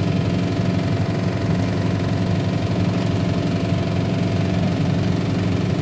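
A steady, low mechanical hum from a running motor, unchanging in pitch and level.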